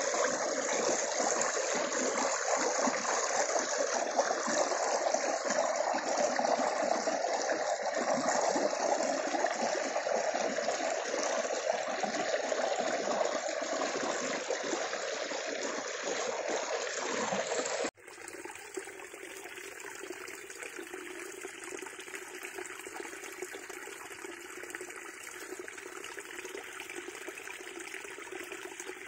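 Mountain water cascading over stones, a steady rush of flowing and splashing water. About eighteen seconds in it cuts abruptly to a quieter, duller flow of water.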